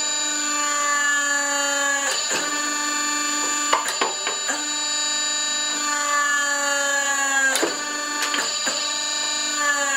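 Homemade hydraulic forging press's electric motor and hydraulic pump whining steadily while the press squeezes a red-hot steel bar between its dies. The whine slowly sags in pitch, then jumps back up with a sharp clunk about two seconds in and again after about seven and a half seconds, with a few more knocks in between.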